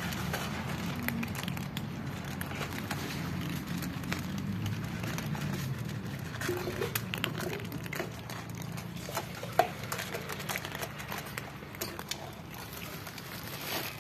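Several cats crunching dry kibble from a shared bowl: a scatter of small, irregular crunches and clicks over a low steady background hum.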